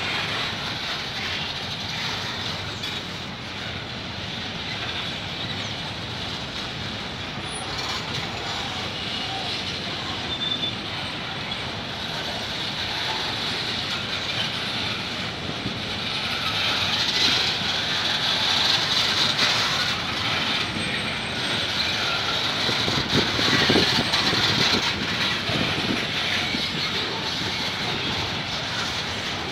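Empty bauxite wagons of a freight train rolling past: the steady rumble and clatter of steel wheels on rail, growing louder about halfway through, with a few short high squeaks.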